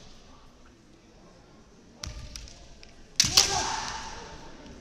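Kendo bout: a foot stamp with a few clacks of bamboo shinai about two seconds in, then a sharp double crack of a shinai strike a second later, the loudest sound, followed by a long shout (kiai) echoing in the hall.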